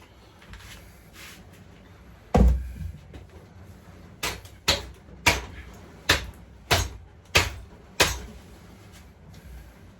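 One heavy thump, then a run of seven sharp knocks about two-thirds of a second apart, from work on a pit bike being stripped down.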